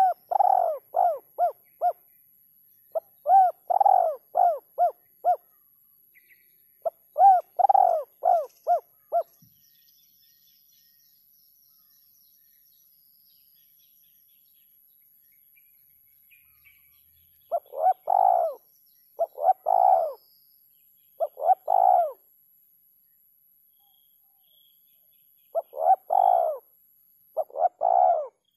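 Spotted dove (terkukur) cooing in repeated phrases, each a quick run of coos. Three longer phrases are followed by a pause of about eight seconds, then shorter phrases.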